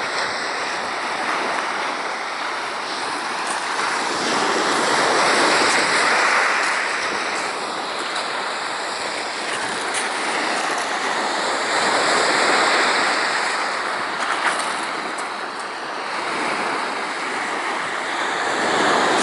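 Sea waves breaking and washing over a stony shingle beach, the rush swelling and easing every six or seven seconds, with wind on the microphone.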